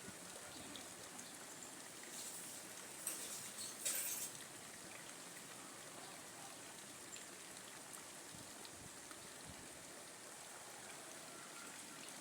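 Faint steady outdoor hiss, with a few brief rustling bursts about two to four seconds in.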